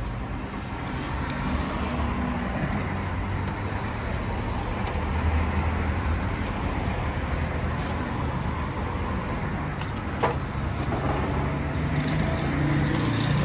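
Long doner knife shaving chicken off a vertical rotisserie spit, with a few sharp clicks of the blade, over a steady low rumble.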